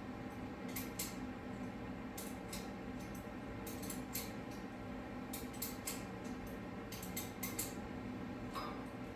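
A 1/8 NPT hand tap being turned into a freshly drilled hole in the top of an LS engine's water pump casting, giving irregular short metallic clicks and scrapes as the tap cuts threads. A steady low hum runs underneath.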